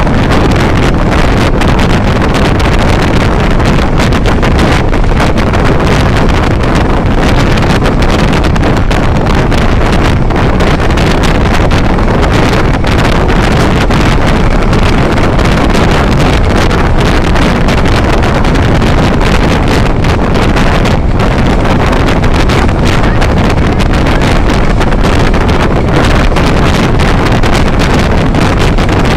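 Loud, steady wind buffeting the phone's microphone, mixed with the road noise of a vehicle driving at speed through a road tunnel.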